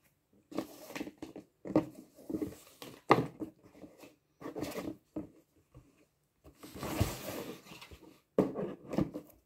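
Cardboard gift box being handled and opened: a ribbon pulled loose and the lid lifted off, with irregular rustling, soft knocks and scrapes, and a longer rustle about seven seconds in.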